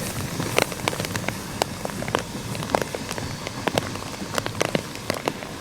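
Rain falling close to the microphone: irregular sharp ticks of drops over a steady hiss.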